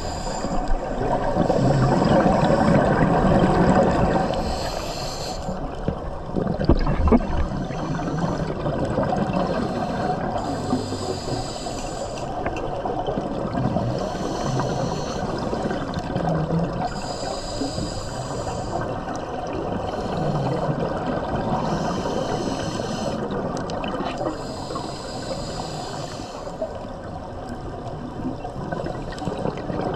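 Scuba diver breathing through a regulator underwater: bursts of exhaled bubbles rushing and burbling every few seconds, over a steady watery hiss.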